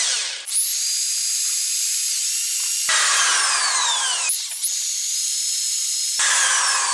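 Electric drill boring a 2.7 mm hole into a car's front brake caliper bracket, its whine falling in pitch under load, in several stretches that change abruptly.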